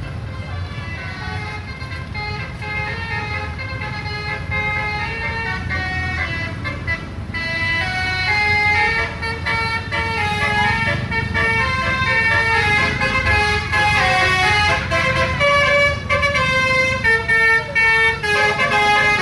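Indonesian "telolet" bus horn, a multi-tone musical horn, playing a stepping tune of held notes over the low rumble of traffic. It gets louder about eight seconds in.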